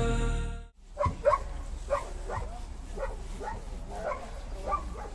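A short stretch of music cuts off under a second in. Then a dog barks repeatedly in short barks, about two a second.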